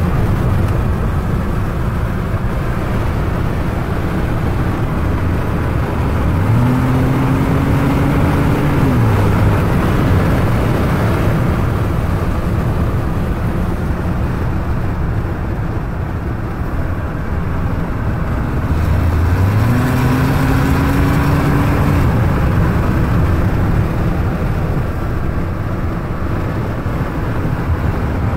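Ford EcoBoost turbocharged engine pulling under full throttle twice, its note rising for two to three seconds each time and then dropping away, over steady road noise. The owner is chasing a flutter or exhaust-leak-like sound at full throttle that the dealer could not diagnose.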